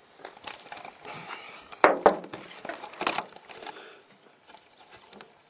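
Camera handling noise as the camera is jostled: rustling and knocking on the microphone, with two sharp knocks about two seconds in and another burst about a second later, then quieter ticks.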